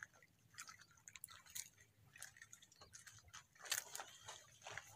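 Faint scattered clicks, ticks and wet drips of a sinking fishing net being hauled in by hand, with a small cluster of them near the end.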